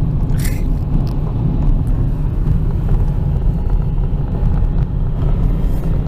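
Steady low rumble of road and engine noise heard inside a moving car's cabin, with a brief higher hiss about half a second in.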